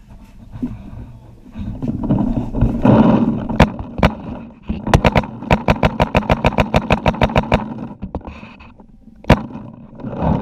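Paintball markers firing: a few single shots, then a rapid string of about twenty shots at roughly seven or eight a second, and one more loud shot near the end. A rough rushing noise runs through the seconds before the string.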